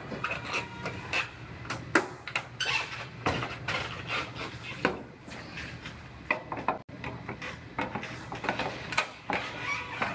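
Irregular metallic knocks, clanks and scrapes as a partly cut-off steel quarter panel is pried and worked loose with a long flat bar.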